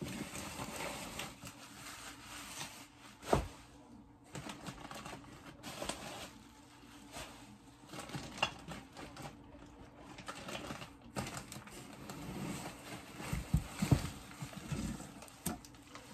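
Rustling and crinkling of plastic bags, bubble wrap and packing fluff being pulled out of a foam shipping box, with scattered light knocks and a sharper knock about three seconds in.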